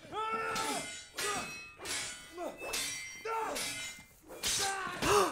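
Sword fight: steel blades clanging amid men's grunts and shouts, about five separate outbursts.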